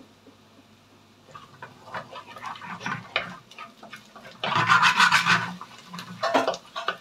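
Chopped shallots going into a cooking pan and being worked with a utensil: irregular scraping and rubbing from about a second in, with a louder rushing burst lasting about a second midway.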